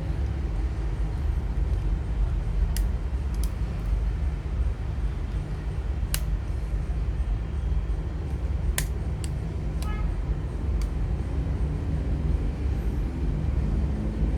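Steady low rumble of background noise, with a handful of short, sharp small clicks scattered through it from tools and small parts being handled during a phone teardown.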